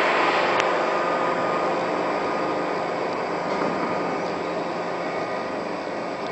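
Steady rushing noise of brick-plant machinery, with faint steady hum tones under it, slowly getting quieter; a faint click about half a second in.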